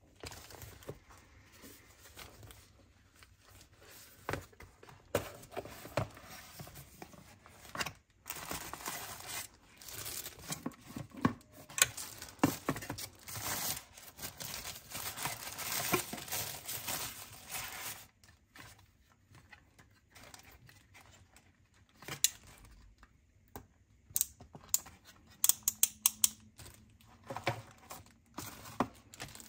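Packaging being unwrapped by hand: paper or plastic wrap tearing and crinkling, busiest in the first two thirds, then giving way to scattered sharp clicks and taps near the end.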